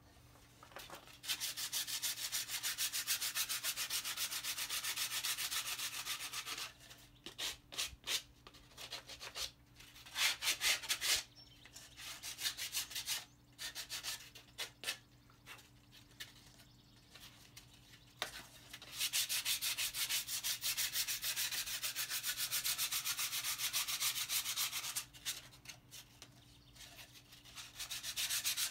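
Sanding, with an even grinding hiss, in two long runs of about five seconds each and a few shorter bursts between them.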